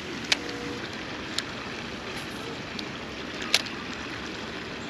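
Small stream flowing steadily, with three sharp clicks over it, the last one the loudest.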